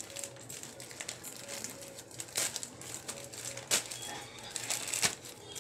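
Plastic courier packet crinkling and crackling as it is handled and pulled open, with a few louder sharp snaps.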